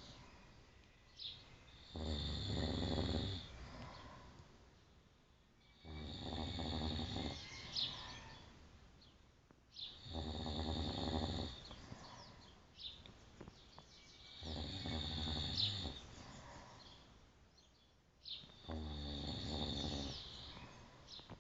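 A man snoring in his sleep: five long, buzzing snores about four seconds apart, each lasting a second or two, with quiet breaths between them.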